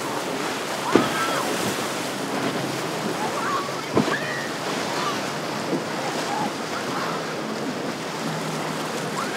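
Rough surf and breaking waves in an inlet with wind on the microphone, a boat's outboard motor faint beneath it. Two short sharp knocks stand out, about one second and about four seconds in.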